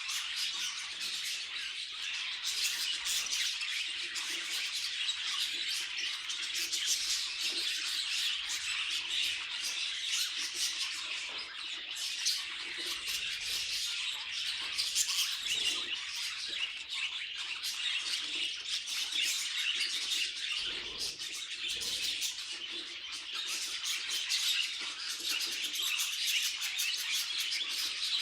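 Budgerigars chattering continuously: a dense, steady stream of quick chirps, warbles and squawks from several birds at once.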